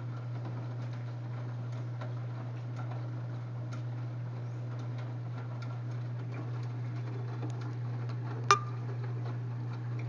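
LG Prime 8.5 kg front-loading washing machine tumbling a wet load of coloureds and jeans in its final rinse: a steady low hum from the drum's motor with scattered light clicks and knocks from the tumbling load, and one sharper clink about eight and a half seconds in.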